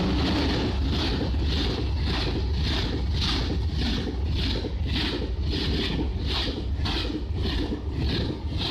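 Eurostar high-speed train passing close by at speed: a steady low rumble with wheel clatter about twice a second and rushing air.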